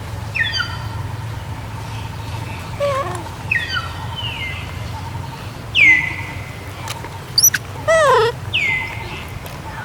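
Young macaques giving short, high-pitched squeaks and chirps several times, each call sliding down in pitch, the loudest about six seconds in, over a steady low background hum.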